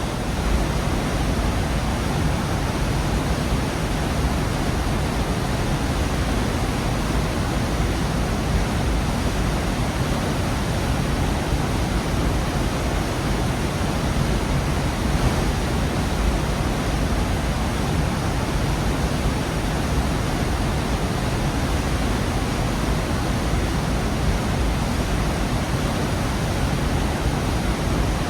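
Waterfall rushing steadily in a rock gorge: a dense, unbroken roar of falling water, heaviest in the low end.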